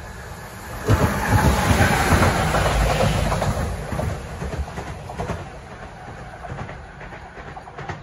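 Electric locomotives passing close by on a station track, their wheels knocking over the rail joints. The noise comes in loud about a second in and fades away as they move off.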